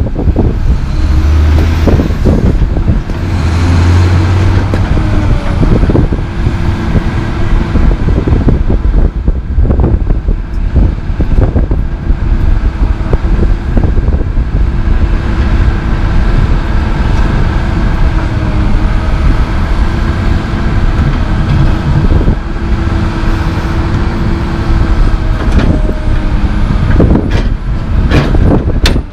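Komatsu PC220 LC excavator's diesel engine running steadily at close range, a constant deep rumble with a steady engine tone. A few sharp knocks come near the end.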